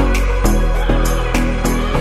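Background music with a steady beat of about two hits a second over deep, sustained bass notes.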